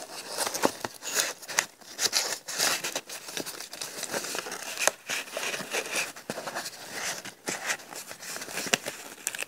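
Paper being handled: irregular crinkling and rustling with small sharp clicks and taps as die-cut paper birds and embellishment pieces are moved and placed.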